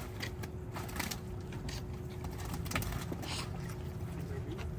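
A steady low mechanical rumble with a constant hum, like an idling engine, with scattered light clicks and knocks.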